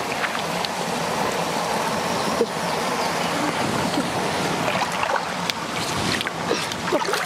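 Shallow water sloshing and splashing as hands grope through a rocky pool for fish, over a steady rush of water, with small splashes scattered through.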